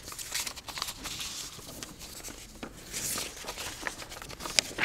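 Sheets of paper rustling and being shuffled on a lectern close to the microphone, with a few light clicks and taps among the rustle.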